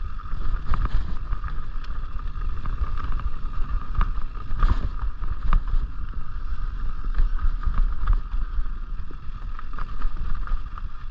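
Mountain bike rolling fast down a dirt singletrack: heavy wind rumble on the microphone, with frequent clatters and knocks from the bike over bumps and a steady high hum.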